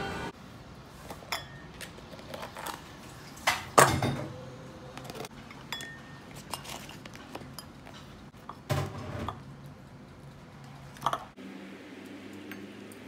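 Ceramic bowls and plates clinking and knocking on a table as food is dished out: a scattering of separate knocks, the loudest about four seconds in.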